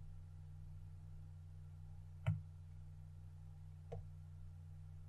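Steady low hum of room tone with two short clicks, about two seconds and four seconds in, the first louder.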